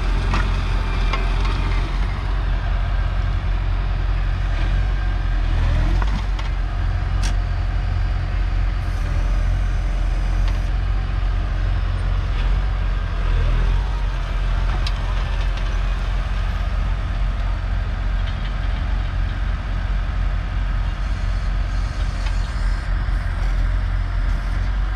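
New Holland TS100a tractor's 4.5-litre four-cylinder diesel engine running steadily under load while pulling a two-furrow reversible plough through the soil.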